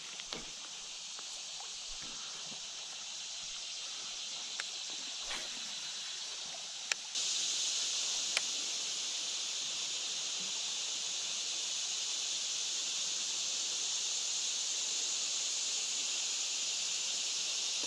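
Summer insect chorus in riverside woods: a steady high-pitched buzz that gets suddenly louder about seven seconds in, with a few faint ticks.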